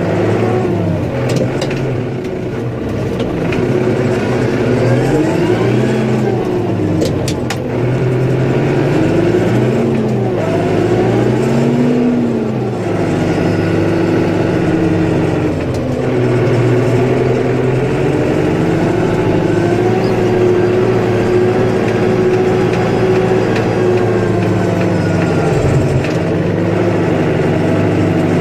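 Engine of a snowplow vehicle running steadily, its pitch swelling up and down several times in the first half, then holding steadier.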